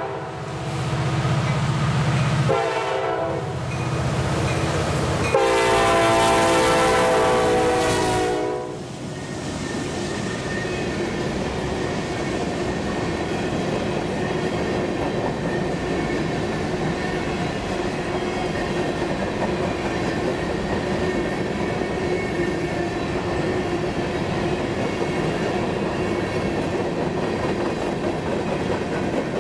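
CSX diesel freight locomotive sounding its air horn in long blasts as it approaches and passes, the horn ending about eight seconds in. After that, a string of covered hopper cars rolls past with a steady rumble and the clickety-clack of wheels on the rail joints.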